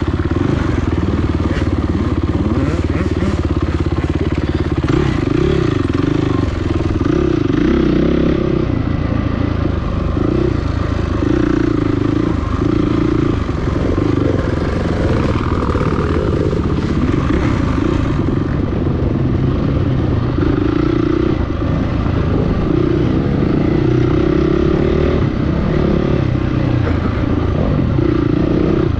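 Dirt bike engine running hard, its revs climbing and dropping every second or two as the throttle is opened and closed.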